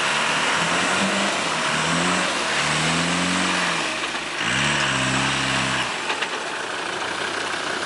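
Land Rover Discovery's engine revving hard in about four rises and falls as its tyres spin and churn through deep mud, trying to drive free; the last and longest rev dies away about six seconds in. A steady hiss runs underneath.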